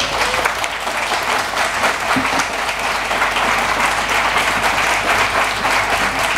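An audience applauding, many hands clapping in a dense, steady round.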